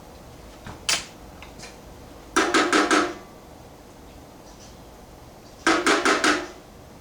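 A single click, then two short clusters of four or five rapid knocks about three seconds apart.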